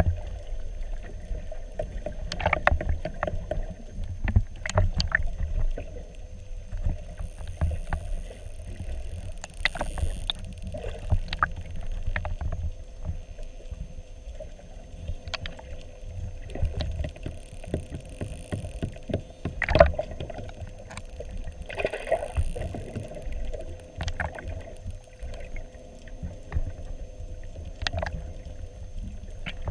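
Muffled underwater sound picked up by a camera held below the surface: a low rumbling wash of moving water with scattered knocks and clicks, over a faint steady hum.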